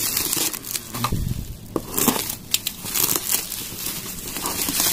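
Plastic courier bag and bubble wrap crinkling and crackling irregularly as they are pulled off a cardboard box by hand, with a low thud about a second in.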